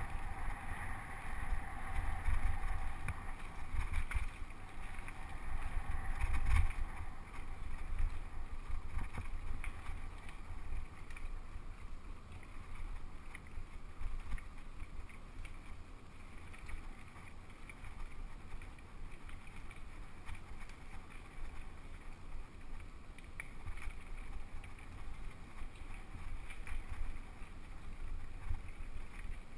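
Mountain bike riding fast down a dirt trail, heard through an action camera: a steady low wind rumble on the microphone, with tyre noise and knocks and rattles of the bike over bumps, loudest in the first seven seconds.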